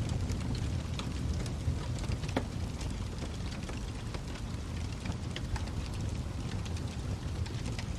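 Wood fire crackling in a fireplace: scattered sharp pops and crackles over a steady low rumble, with one louder pop about two and a half seconds in.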